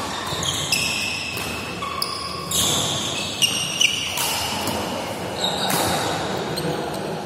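Badminton doubles rally: rackets strike the shuttlecock about every second or so, with two sharp louder hits near the middle. Between hits there are brief high squeaks of court shoes on the mat, echoing in the hall.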